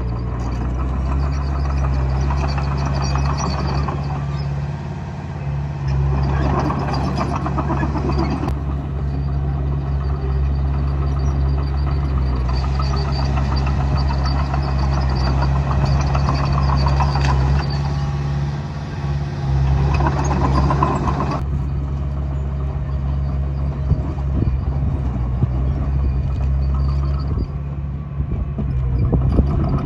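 Komatsu D20A bulldozer's diesel engine running steadily, with the engine note and clatter rising in two stretches of harder working, around a quarter of the way in and again through the middle.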